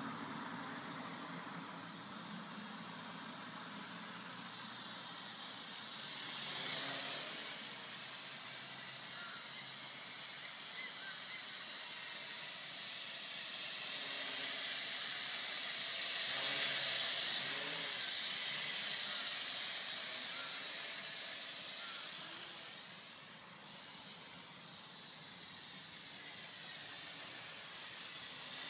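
Small V929 toy quadcopter's motors and propellers whining steadily, the pitch wavering up and down with throttle. It gets louder a little past halfway as it hovers close, then fades.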